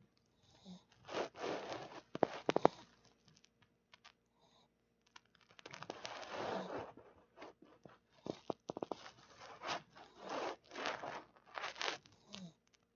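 Pekingese dog snoring lightly in its sleep, with a noisy breath every second or two.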